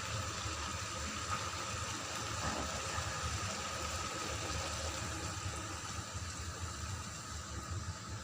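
Pot of chicken adobo bubbling steadily as it cooks in its liquid, with a low steady hum underneath.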